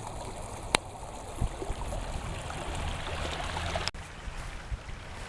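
Stream water running, a steady rushing hiss, with a sharp click about three-quarters of a second in. Just before four seconds in the sound breaks off abruptly and drops in level.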